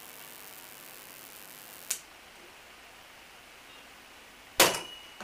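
Capacitor-discharge magnet charger: a sharp click about two seconds in as a faint hiss stops, then a loud sharp bang with a brief metallic ring near the end as the charged capacitors discharge through the fixture and magnetize an e-rickshaw motor magnet.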